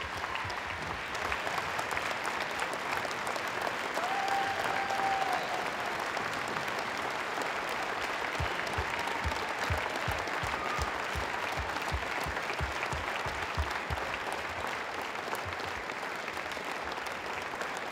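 A large crowd applauding steadily. Partway through there is a quick run of low thumps under the clapping.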